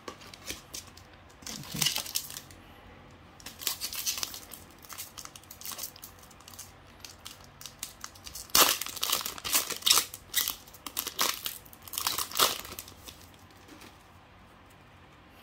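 Foil Pokémon card booster pack being handled and torn open by hand: irregular crinkling and crackling of the wrapper, heaviest in a run of bursts a little past the middle.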